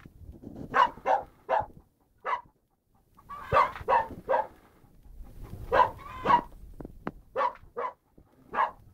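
A dog barking repeatedly, in quick runs of two to four barks separated by short pauses.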